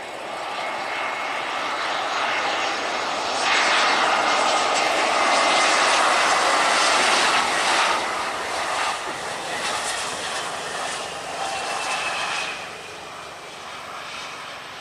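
Jet airliner engines passing close by, a rushing noise that builds, peaks for several seconds midway, then fades, with a faint high whine over it.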